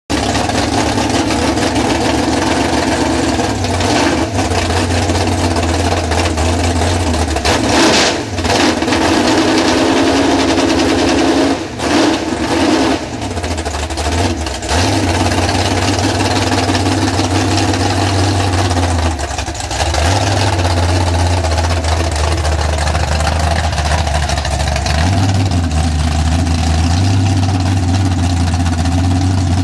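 Ford sand drag truck's engine running loud. It idles with its pitch stepping up and down several times as the throttle is blipped while the truck is driven down off a trailer.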